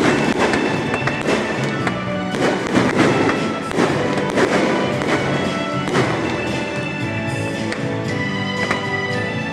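Fireworks bursting in a string of sharp bangs while music plays loudly throughout.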